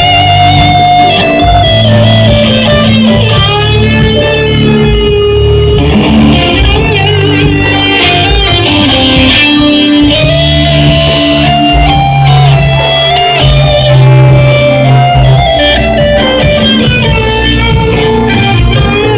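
Live electric guitar lead played through an amplifier, with single notes that bend and waver in pitch over a low bass backing from the band.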